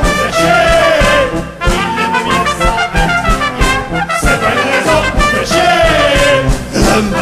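Brass band music with a steady drum beat: an instrumental passage of a carnival song.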